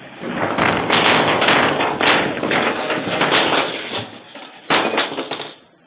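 Loud crackling, clattering noise for about four seconds, then dying down, with a second short burst near the end.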